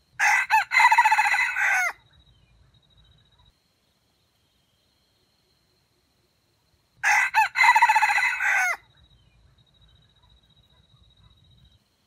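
Red junglefowl rooster crowing twice, about five seconds apart, each crow lasting under two seconds and dropping in pitch at the end.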